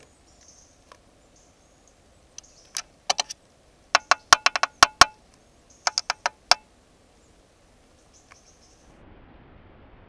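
A bird pecking at the trail camera right against its microphone: loud, sharp taps in three bursts. The middle burst is the longest, about eight taps in a second.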